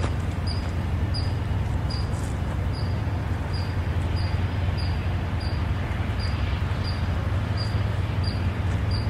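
Steady low rumble of a freight train's diesel locomotive working toward the crossing, with a short high tick repeating evenly about two and a half times a second.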